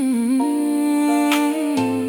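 AI-generated slow R&B ballad playing, with a wordless hummed vocal line held over soft sustained accompaniment.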